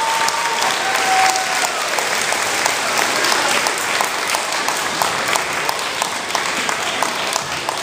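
A school assembly audience applauding steadily, with dense clapping at the end of a song.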